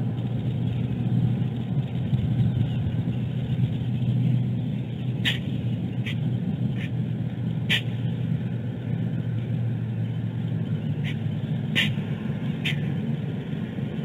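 A male bald eagle sneezing on the nest: seven short, sharp sneezes in two clusters, about five to eight seconds in and again about eleven to thirteen seconds in, over a steady low rumble.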